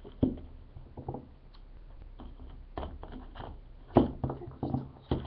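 Spice jars being handled and put down: a series of light knocks and clicks, the loudest about four seconds in.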